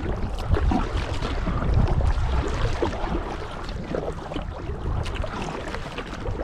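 Kayak paddle dipping and splashing in the water stroke after stroke, with wind rumbling on the microphone.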